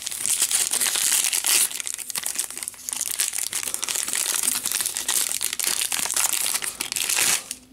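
Foil wrapper of a trading-card pack crinkling and crackling as it is torn open and handled, stopping about seven and a half seconds in.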